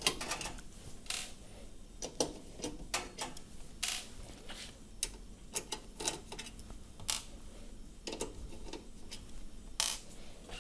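Irregular small clicks and light metallic taps of a screwdriver working screws out of the range cooker's oven flue vent, about a dozen spread over several seconds.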